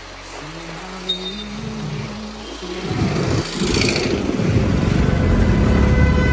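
Wind buffeting the microphone and road noise while riding a scooter through traffic, becoming loud about three seconds in. Quieter background music before that.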